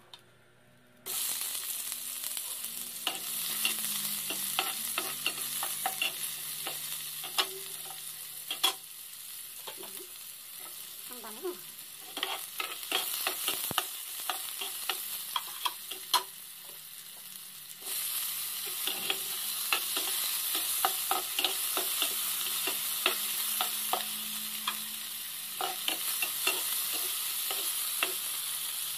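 Hot oil in a nonstick frying pan starts sizzling suddenly about a second in as sliced onions are dropped in. It keeps frying while a spatula stirs and knocks against the pan in many sharp clicks. The sizzling jumps louder again about 18 seconds in.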